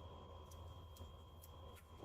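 Near silence: faint room tone with a steady low hum and four faint ticks about half a second apart.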